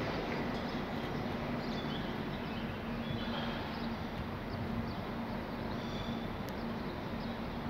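A distant train approaching slowly through a railway station: a steady rumble with a low hum, and a few faint high chirps.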